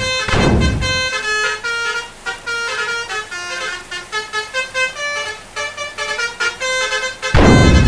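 Multi-tone 'telolet' Basuri bus horns playing a rapid tune of short stepping notes. A loud rushing noise blast sounds over it at the start and again near the end, the loudest moment.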